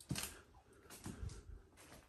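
Footsteps on a wooden floor littered with debris: about four short crunching steps with dull thuds, the first the loudest.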